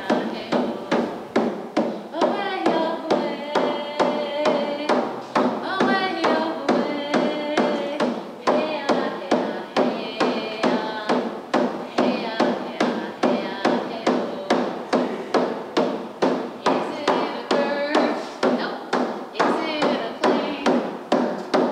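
Hand drum struck in a steady beat, about two beats a second, with a voice singing over it.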